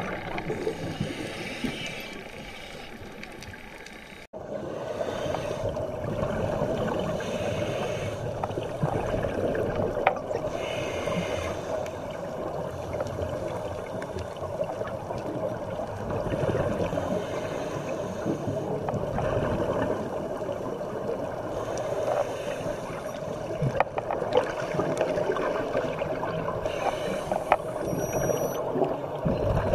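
Muffled underwater noise heard through a dive camera's housing: a steady murky rumble, with bursts of scuba regulator bubbles every few seconds. The sound cuts abruptly to a louder take about four seconds in.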